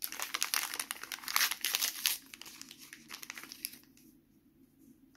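A small plastic STIKEEZ toy packet crinkling loudly and being torn open in the hands for about four seconds, then only a few faint crinkles near the end.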